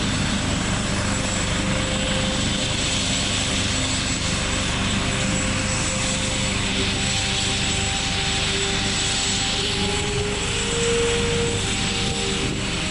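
Helicopter running on the ground with its rotor turning, just before lift-off: a steady rotor and engine sound with a high, steady turbine whine over it.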